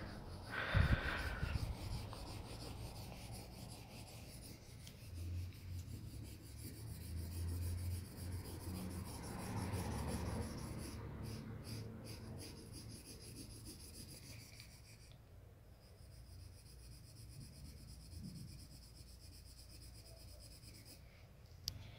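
Felt-tip marker scribbling and hatching across paper, with a thump about a second in.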